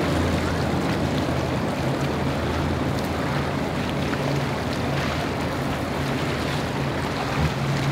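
Outboard engines of a center-console sport-fishing boat running at speed, a steady low drone, mixed with the rushing wash of its wake and the waves.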